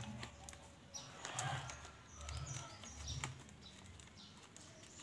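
Faint rustling and small scattered clicks of a seedling's packaging being handled and unwrapped by hand.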